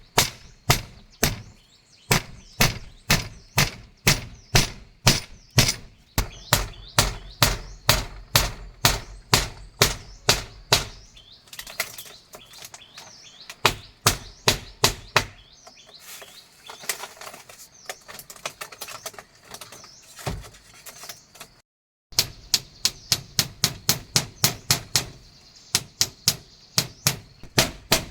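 Rapid, regular blows of a hand tool on wood, about two to three a second. Midway the blows thin out and birds chirp, then after a brief cut the steady blows resume.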